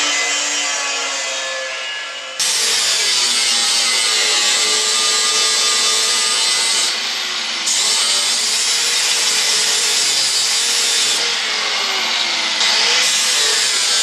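A power tool running under load on steel plate, a dense continuous noise with a wavering whine that eases briefly a couple of times.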